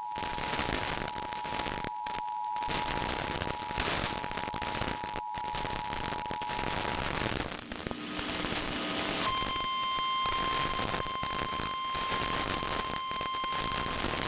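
Emergency alert tones received over heavy crackling radio static. A two-tone attention signal sounds until about 7 seconds in, then a short lower tone, then a single steady alarm tone from about 9 seconds in.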